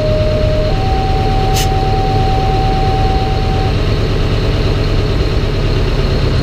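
The 1971 American LaFrance Aero Chief fire truck's engine idles steadily, heard from inside its open cab. Over it, a two-tone paging signal sounds on the dash radio: a lower tone held about a second, then a higher tone held about three seconds. There is one short click partway through.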